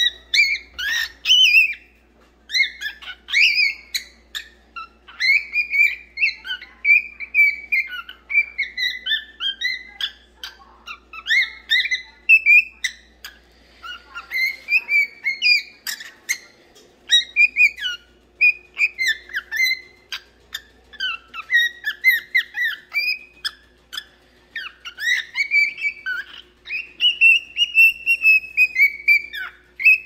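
Cockatiel singing: a steady stream of short chirps and whistled notes, with a longer drawn-out whistle near the end.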